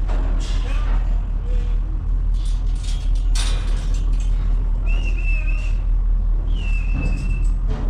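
A truck engine runs with a steady low rumble. Two short, high, wavering squeals come about five and six and a half seconds in.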